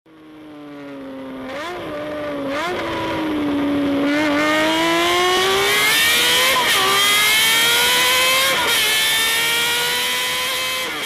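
A high-revving multi-cylinder engine accelerating hard through the gears: its pitch climbs steadily in each gear and drops at each upshift, about five times. It fades in at the start and fades out near the end.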